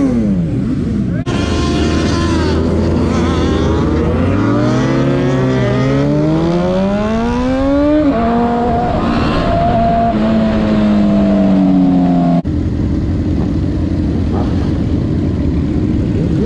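Sport motorcycle engine heard from the rider's seat, its pitch climbing steadily as it accelerates, then shifting and holding a steadier note. The sound changes abruptly twice, as if cut; the last few seconds are a steady engine note from a pack of motorcycles.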